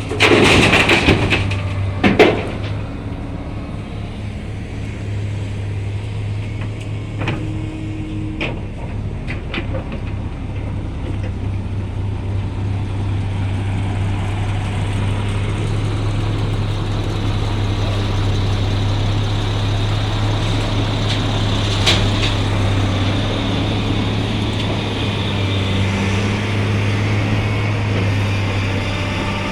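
An engine running steadily with a low hum that slowly grows louder, with a few short, sharp sounds in the first couple of seconds.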